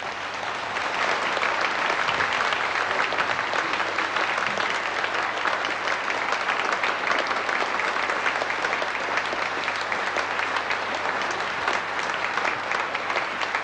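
Audience applause: a crowd clapping steadily, swelling over the first second or so and then holding level.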